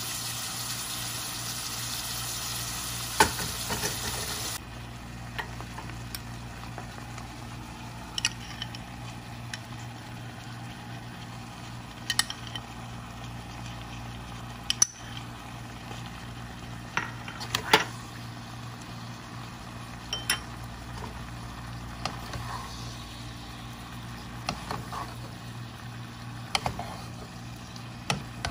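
Shrimp and bell pepper sizzling in hot oil in a pot for the first few seconds, with a wooden spatula knocking against the pot; the sizzle cuts off suddenly about four and a half seconds in. After that a quieter stir-fry of vegetables in sauce, with scattered sharp knocks and scrapes of the spatula on the pot over a low steady hum.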